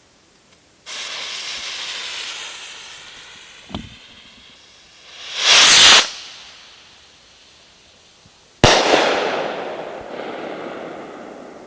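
Consumer firework rockets going off: a sudden rushing hiss about a second in that fades over a few seconds, a sharp pop near four seconds, a loud swelling burst around six seconds, then another sudden loud hiss near nine seconds that slowly fades.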